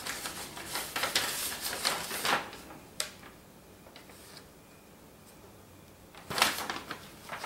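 Rustling and scraping of a cardboard shipping box being handled, dense for the first couple of seconds, then a single sharp click about three seconds in and another brief burst of rustling near the end.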